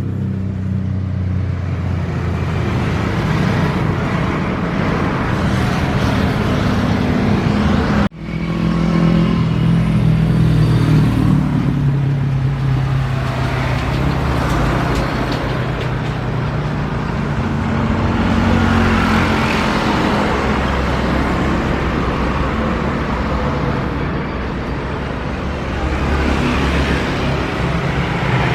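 Steady engine noise with a low hum, cut off sharply about eight seconds in and resuming straight after, swelling somewhat later on.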